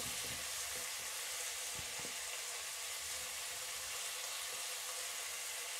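Shallots, chillies, curry leaves and tomato sizzling steadily in sesame oil in an aluminium pot, with a couple of faint clicks.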